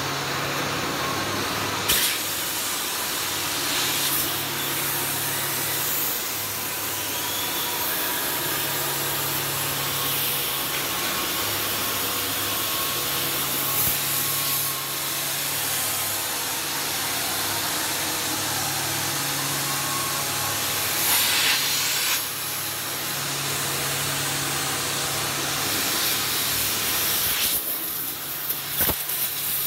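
Steady hiss and crackle of electric arc welding on the steel hull plate, with a low machine hum under it that switches between two pitches every couple of seconds.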